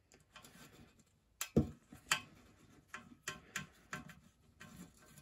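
Screwdriver undoing the small switch screws on a Dualit toaster's aluminium end casting: a run of irregular sharp clicks and taps as the tip turns in the screw heads, the loudest about one and a half to two seconds in.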